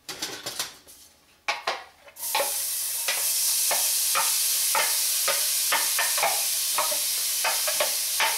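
Chopped onions tipped into hot oil in a stainless steel pot: a few light knocks, then about two seconds in the oil breaks into a steady sizzle as the onions land, with repeated clicks and taps as the container is shaken out over the pot.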